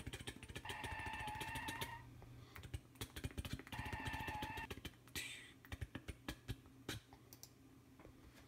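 A small delivery van's engine running as it pulls up, its horn sounding twice, each about a second long. After that comes a short hiss and a scatter of clicks and knocks.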